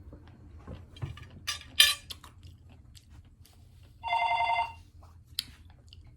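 A telephone rings once, a short warbling electronic ring of under a second about four seconds in. Before it come a few sharp clicks and a clatter, the loudest about two seconds in.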